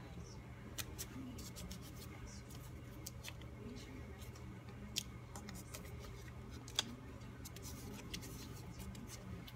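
Faint small clicks and taps of hands fitting and adjusting parts inside a motorcycle speedometer or tachometer housing, with three sharper clicks, over a steady low hum.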